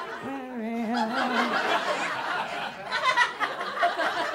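A woman's drawn-out, wavering hum at the start, then a comedy club audience laughing, peaking about three seconds in.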